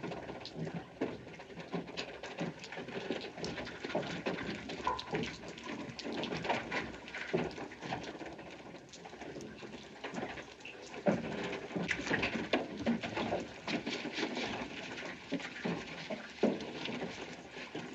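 Film sound of the inside of an old windmill: its wooden works clatter and knock in many quick, irregular clicks over a steady hiss.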